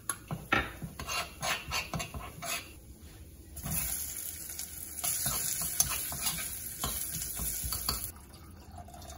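A spoon clinking and scraping chili-flake and sesame-oil paste from a small bowl into a pot on the stove. Then, about three and a half seconds in, a steady sizzle as sliced onions hit the hot oil. The sizzle lasts about four seconds, then falls away.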